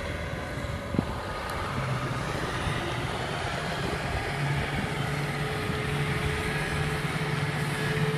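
Kubota M6040SU tractor's diesel engine running steadily while it pulls a loaded trailer through a muddy field. Its note grows stronger and steadier from about four seconds in, over a constant low rumble.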